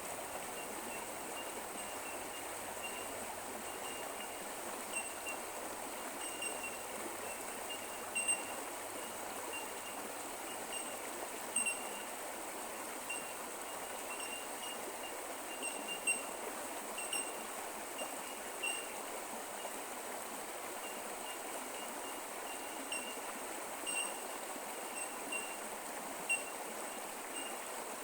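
Creek water running steadily, with short high-pitched pips at one fixed pitch recurring irregularly throughout.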